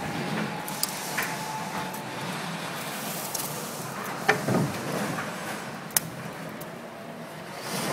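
Typhoon wind and rain: a steady rushing noise with scattered sharp knocks and rattles, and a faint steady whistle that fades out about two seconds in.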